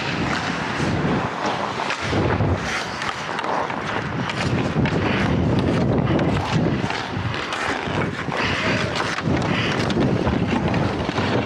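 Air rushing over the microphone of a player-worn camera while skating, with the scrape of ice skate blades on the ice.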